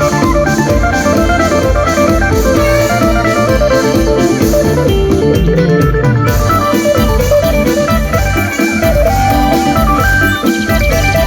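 Instrumental lam sing band music: a quick plucked electric phin melody over electronic organ, bass and a steady drum beat.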